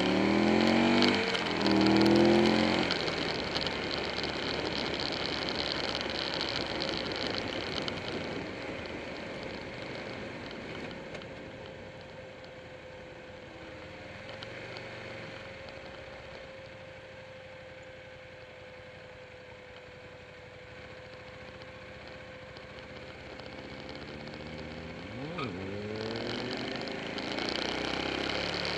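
Motorcycle engine and wind noise heard from on board while riding: the engine revs up in the first few seconds, settles into a steadier, quieter cruise through the middle with a faint steady whine, then revs up again near the end.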